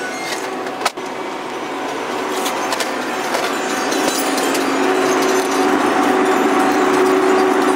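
Steady hiss and hum of a convenience store interior, with a sharp click about a second in. About five seconds in, a steady drone from the chilled drink cases comes in.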